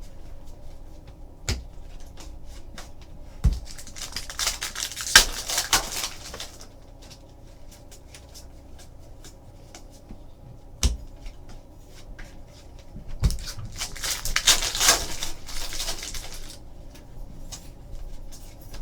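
Trading card pack wrappers being torn open and crinkled, two stretches of a couple of seconds each, with a few sharp knocks as cards and packs are set down on the table.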